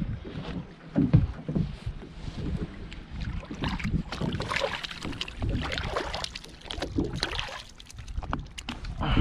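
Water splashing and sloshing with occasional knocks, over an uneven low rumble of wind on the microphone.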